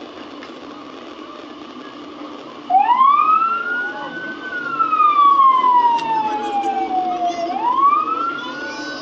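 An emergency-vehicle siren starts suddenly about three seconds in and wails: a quick rise in pitch, a long slow fall, then a second rise near the end.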